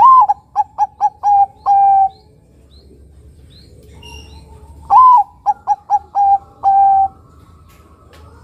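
Perkutut Bangkok zebra dove, a Thai-bred song line, cooing two song phrases about five seconds apart. Each phrase is a first note, then a quick run of four or five short coos, then a longer held coo. Faint chirps from other birds come between the phrases.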